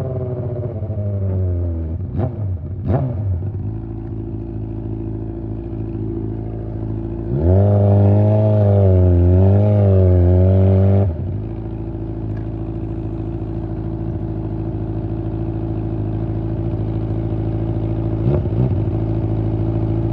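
Honda CBR600 inline-four engine running with no exhaust fitted. Its pitch falls at first, with two short blips of revs, then a loud stretch of higher revs a few seconds long that wavers up and down around the middle, settling back to a steady lower drone with one short blip near the end.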